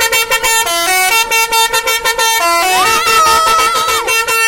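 A bus's 'telolet' musical air horn playing a tune of quick pulsing notes that step up and down in pitch, with a higher note held for about a second in the second half.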